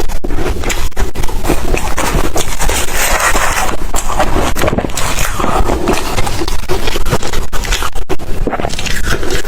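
Ice being chewed and crunched loudly close to the microphone, a continuous run of crunches without a break.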